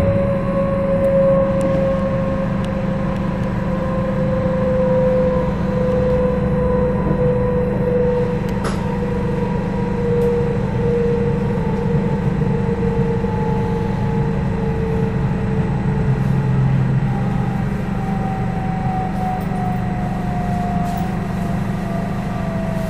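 Inside an electric S-Bahn train: the steady rumble of wheels on rails, with a motor whine in two tones whose pitch slowly falls as the train brakes for a station stop.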